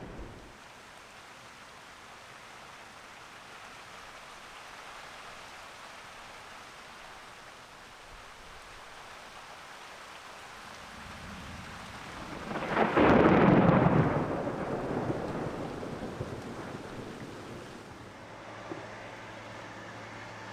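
Steady rain falling, with a roll of thunder: a low rumble builds a little past halfway, peaks in a loud crack and rumbles away over several seconds.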